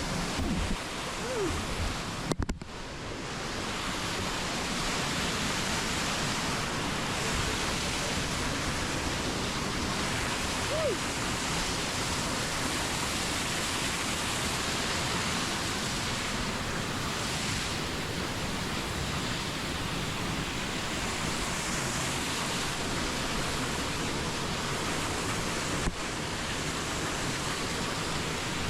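Steady rush of a waterfall and fast-flowing creek water, an even hiss with no let-up. It drops out for a moment about two and a half seconds in.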